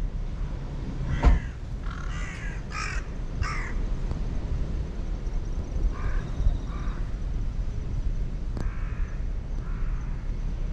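A crow cawing: three harsh caws in quick succession about two seconds in, then softer pairs of caws later, over a steady low rumble. A sharp knock sounds about a second in.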